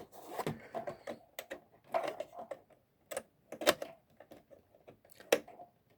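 Irregular clicks and knocks of hard plastic being handled as a power connector is plugged into an original Xbox's disc drive, a few sharp clicks spread through the stretch, the loudest near the middle and near the end.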